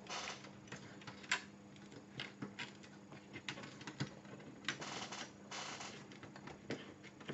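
Faint scattered clicks and short scratchy scrapes of fingers working a DIP ROM chip's metal legs into its socket on an Amiga 1200 motherboard, the chip not yet seated.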